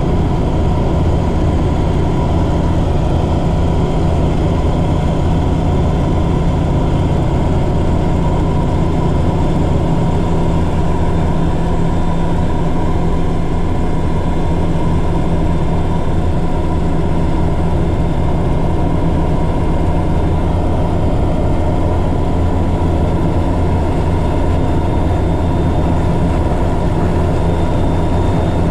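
Helicopter turbine and rotor noise heard from inside the passenger cabin: a loud, steady drone with a strong low hum, during the final approach to an offshore helideck.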